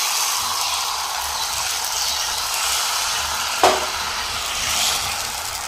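Maida batter sizzling steadily as it hits hot ghee in a non-stick frying pan and is spread with a steel ladle. One sharp click about three and a half seconds in.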